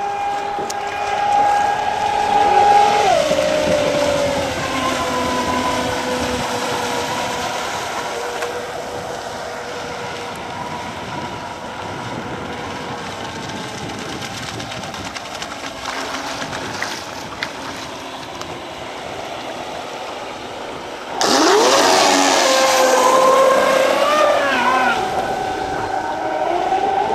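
High-pitched whine of fast electric RC racing boats (Expresscraft Thunderbolt and MTI Cat) running at speed, over the hiss of their spray. The whine drops in pitch about three seconds in. About three-quarters of the way through it gets suddenly louder, with several whines rising and falling as the boats race close together.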